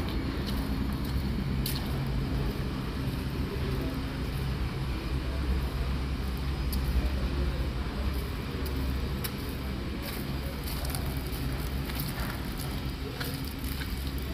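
Steady low rumble and hiss of a paint booth's ventilation fans, with scattered faint clicks.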